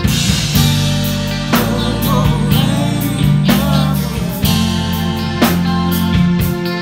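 Live band playing, with drum kit, electric guitar and bass, and a singing voice over them.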